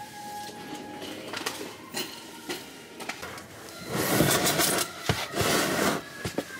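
Clothes and belongings being rummaged through by hand: rustling and scattered light knocks, with the loudest stretch of rustling from about four to six seconds in.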